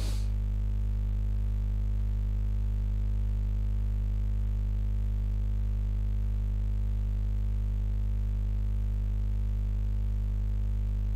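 Steady low hum with a faint buzz, holding one pitch and level without change.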